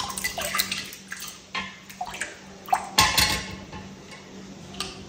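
Cubes of jelly sliding off a plate and dropping into a pot of thick milk: a run of small splashes and plops with light knocks of the plate, the biggest splash about three seconds in.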